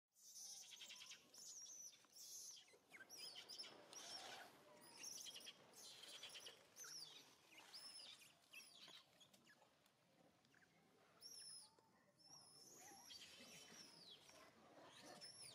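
Faint outdoor birdsong: many short, high chirps and whistles, coming one after another with brief gaps.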